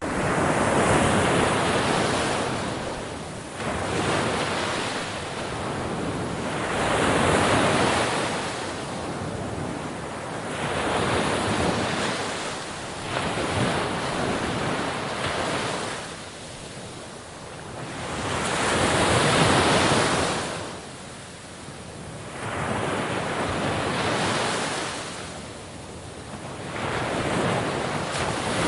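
Sea waves breaking on a shore, each wash swelling and fading every few seconds.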